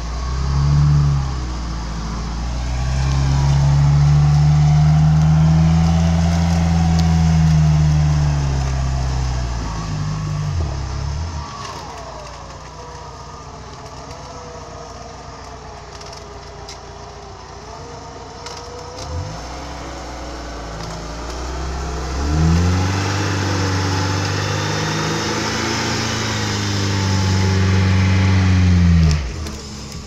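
Lada Niva's engine under load in deep mud, revving up and holding high for several seconds, then easing off to a lower, quieter run in the middle, and then revving hard again near the end before dropping away.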